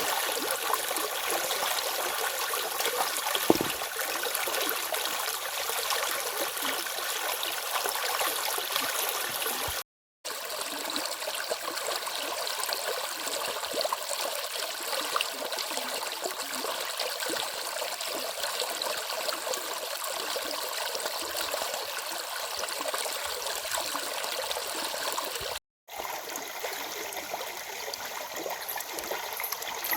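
Stream flowing, a steady rush and trickle of water. The sound cuts out to silence twice for a fraction of a second, about a third of the way in and near the end.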